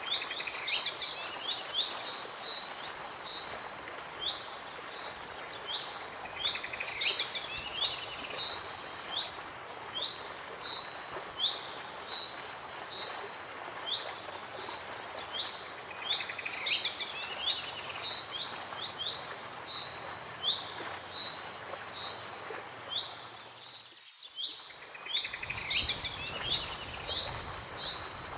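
Songbirds singing: quick high chirps and fast trills in a short phrase that comes back about every four to five seconds, over a steady background hiss.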